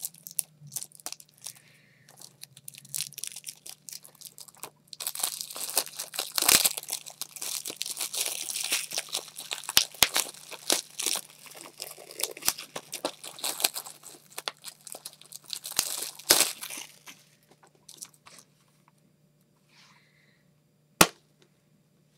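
Plastic shrink-wrap being torn and crinkled off a Blu-ray case, in long stretches of dense crackling. Near the end a single sharp click comes as the plastic case snaps open.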